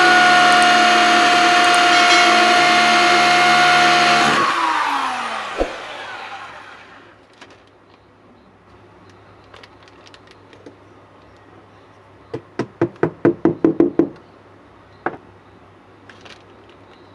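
Electric power tool motor running at full speed, then released and spinning down with a falling whine over a couple of seconds. Later comes a quick run of about ten sharp knocks, followed by a couple of single clicks.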